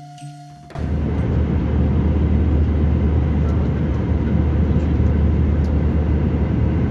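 Airliner jet noise: a loud, steady roar with a heavy low rumble that cuts in abruptly about a second in.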